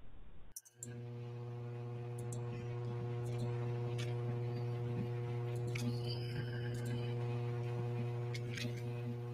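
Steady electrical mains hum on the audio line, a low buzz with a ladder of overtones, starting about a second in. A few faint clicks are scattered through it.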